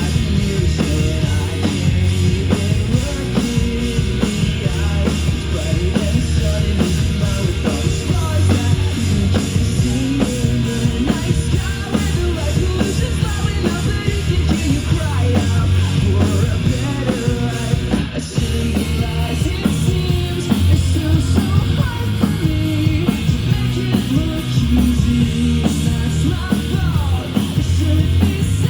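Loud rock music with singing, continuous, with a brief dip about 18 seconds in.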